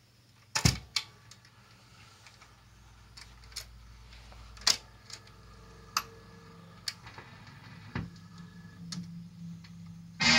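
Record autochanger of a Kolster Brandes LG40 radiogram going through its start cycle: two loud clicks as it is switched on, then a low motor hum with scattered mechanical clicks as the pickup arm swings over and lowers onto the record. The record's music starts at the very end.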